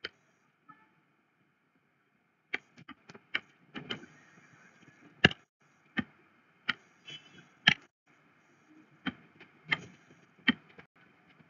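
Irregular sharp clicks, about a dozen, from the input device used to draw on a digital whiteboard, starting a couple of seconds in.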